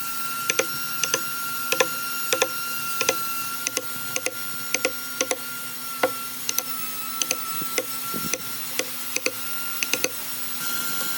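Regular sharp knocks, about two a second and some in quick pairs, over a steady hum.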